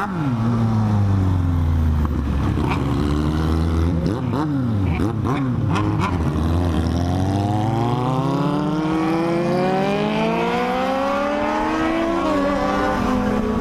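Sport motorcycle engines riding in a group: the engine note falls as they slow and runs low for a few seconds. From about seven seconds in it rises in one long pull under acceleration, then drops at a gear change near the end.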